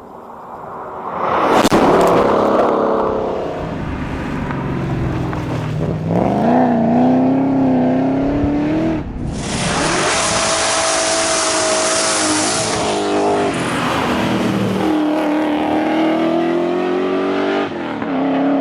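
Holden Commodore VH SS Group 3's V8 engine under hard acceleration, its pitch climbing and then dropping sharply at each of several gear changes. A loud hiss of wind or road noise rides over it for a few seconds in the middle.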